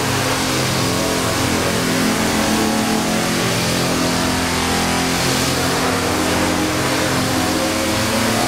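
Steady drone of a running engine or machine, an even hum with several fixed pitches over a rushing noise.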